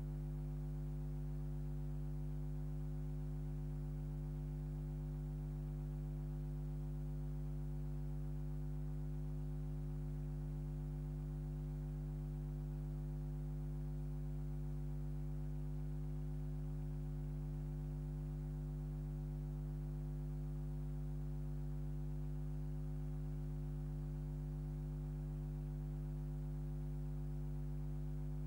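Steady electrical hum with several fixed overtones, unchanging throughout: noise on an otherwise silent 8mm film transfer.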